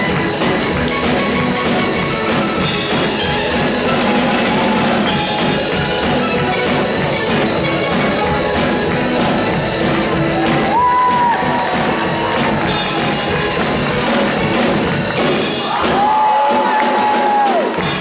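Live steel band music with a drum kit, a busy drum beat under the pans. Near the middle and again near the end, a short, high, held call rises above the music.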